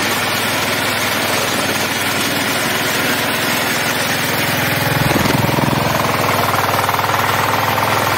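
Engine of a walk-behind maize harvester running steadily under load while its cutters take maize stalks, a fast even rhythm throughout. About five seconds in the note dips briefly and then runs a little louder.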